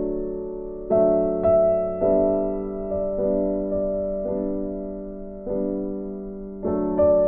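Slow, soft background piano music, each chord struck and left to fade before the next.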